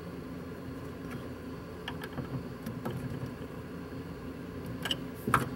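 Steady low background hum with a few faint clicks and taps of hand work against the firewall bracket, the sharpest two near the end.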